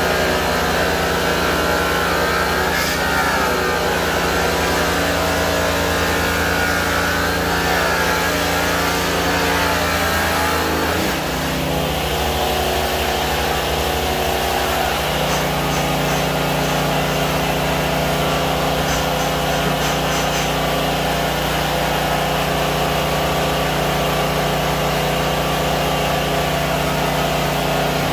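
High-speed rotary polisher with a buffing wheel running against a stainless steel tanker shell, a steady machine drone whose note shifts a couple of times around the middle as the load on it changes.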